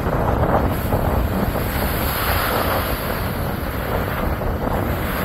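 Strong wind buffeting the microphone over rough surf breaking on the shore: a steady rushing noise with a heavy low rumble.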